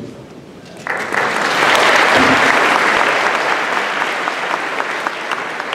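Audience applauding. The applause starts suddenly about a second in, swells, then slowly thins out into scattered separate claps.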